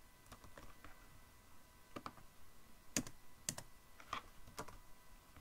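Computer keyboard keys pressed a few at a time, scattered keystrokes rather than steady typing, the loudest two about three seconds in.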